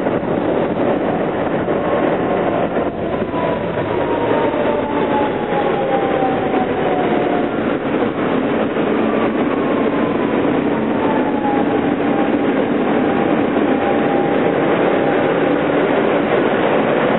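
Ride noise inside an R160B Siemens subway car under way: a steady rumble of wheels on rail with some clickety-clack, and a motor whine that falls in pitch twice as the train slows.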